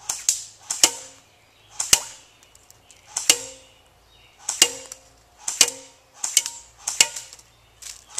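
CYMA AK-47 airsoft electric gun firing single semi-automatic shots, about ten sharp cracks at uneven intervals, each with a short ring.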